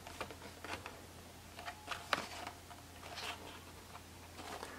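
Faint scattered clicks and crinkles of a plastic blister card being handled and turned over in the hand.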